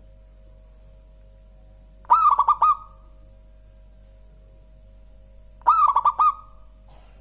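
Zebra dove (perkutut) cooing: two short phrases of quick, clipped notes, about three and a half seconds apart.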